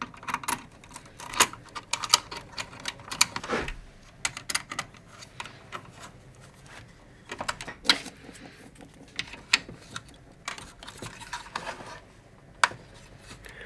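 Irregular metallic clicks and clinks as a screwdriver and machine screws are worked against the perforated steel cases of stacked switching power supplies, while a small unit is fitted onto the stack.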